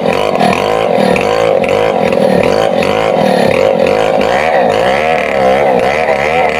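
Stihl 070 chainsaw, a large two-stroke saw, running at high revs while cutting down through a thick mango trunk. The engine pitch keeps wavering up and down as the chain bites and the load changes.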